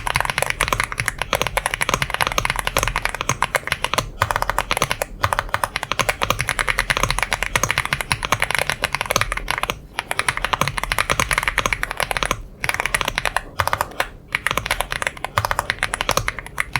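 Fast continuous typing on a Womier S-K71 mechanical keyboard, a dense stream of key clicks with a few brief pauses, stopping near the end.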